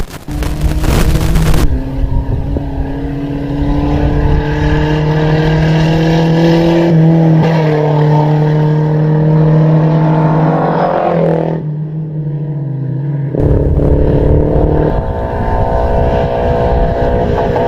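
Off-road racing vehicle's engine running hard under load, its pitch climbing slowly and then falling away about eleven seconds in. After a brief lull an engine picks up again. The first couple of seconds carry loud rough noise.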